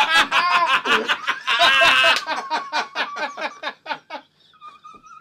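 Several men laughing hard together in rapid bursts, the laughter tapering off about four seconds in, with a faint, thin high note near the end.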